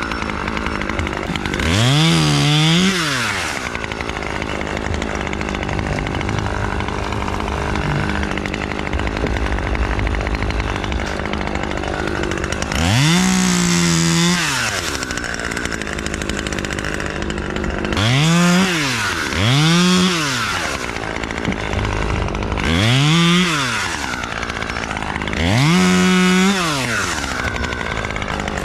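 Chainsaw idling between cuts and revved up to full speed six times to take off limbs, each rev rising and falling back to idle. It is a new saw on its first tank, with throttle response that is a little slow.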